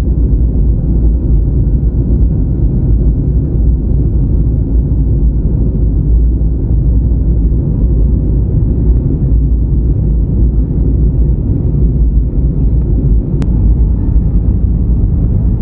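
EasyJet airliner's jet engines and rushing air, a steady low rumble.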